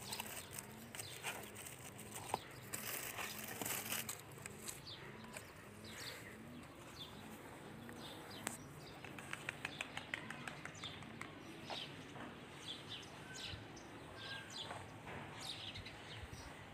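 Small birds chirping, with many short calls scattered throughout, over a faint low sound that repeats about one and a half times a second and fades out in the second half. A few clicks from handling are mixed in.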